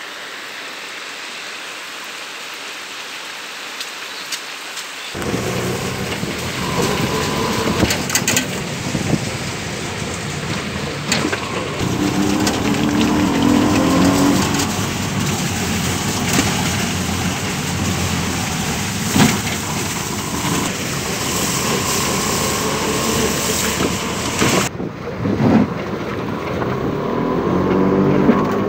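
Steady rain at first; about five seconds in, a vehicle sets off along a water-covered gravel road, its engine rumble mixing with water noise and wind on the microphone.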